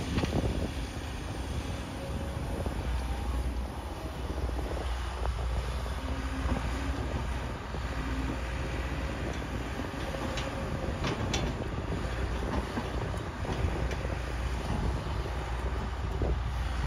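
Kobelco crawler excavator's diesel engine running steadily under load as it digs and swings its arm, a low rumble, with a couple of sharp knocks about ten and eleven seconds in.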